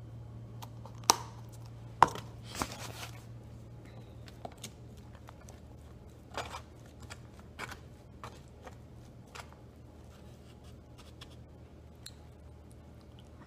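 Black plastic fork clicking and scraping against the food container while picking up hash browns: two sharp clacks about one and two seconds in, a short scrape just after, then scattered lighter clicks. A steady low hum runs underneath.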